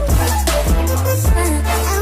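Background music with a heavy bass line and a steady electronic beat of kick drums.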